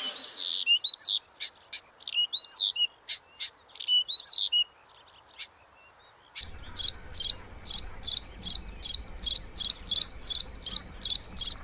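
Birdsong: short whistled, gliding phrases with a few clicks, then after about two seconds of near quiet an evenly repeated high chirp, about three a second.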